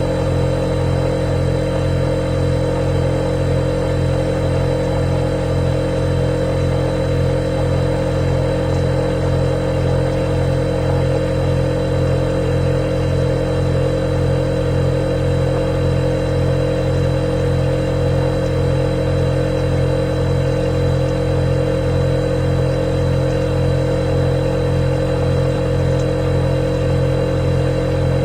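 Refrigerator running with a steady, even hum and a thin high whine above it.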